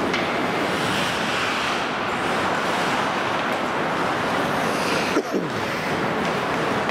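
Indoor ice-rink ambience during hockey play: a steady rushing hiss with skates on the ice, and one short, sharp knock about five seconds in.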